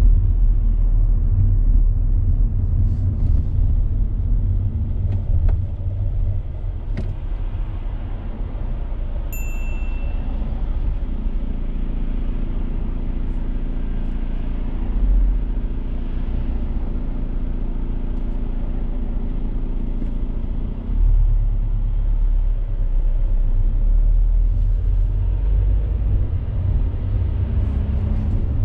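Car cabin noise while driving: engine and road rumble. The engine note holds steady through the middle, then the rumble grows louder about two-thirds of the way through. A single short, high beep sounds about nine seconds in.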